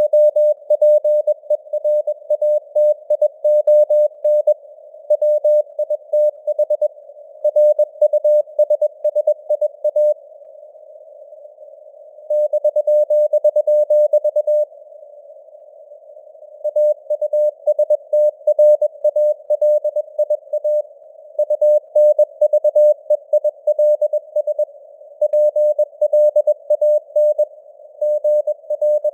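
Morse code at 21 words per minute: a single tone of about 600 Hz keyed on and off in dots and dashes, over a narrow band of simulated receiver hiss around the tone. Two pauses of about two seconds come near the middle.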